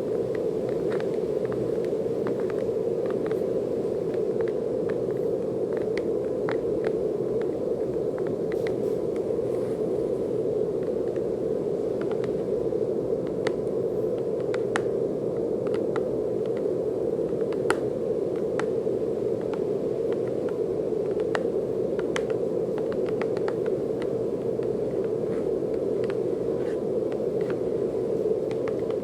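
Steady brown noise: an even, dull rushing hiss centred low, with faint scattered clicks throughout.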